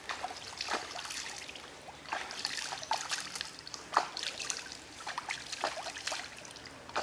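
Stream water splashing and dribbling in irregular strokes as hands rinse raw pork in it, the loudest splash about four seconds in.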